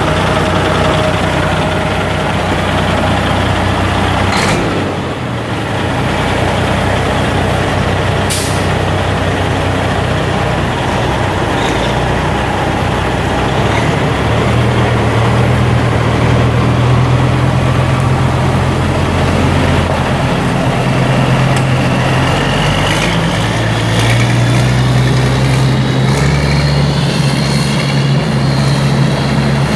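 Caterpillar 3406 inline-six turbo diesel of a Freightliner semi tractor running, its pitch rising and settling several times as the truck pulls away, with a faint rising whine near the end. Two short sharp air hisses about four and eight seconds in.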